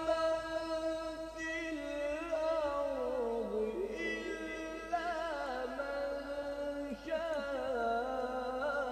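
A male qari's voice reciting Quran in the melodic tajweed style, holding long notes with wavering ornamental turns and a slow slide down in pitch, with brief pauses between phrases.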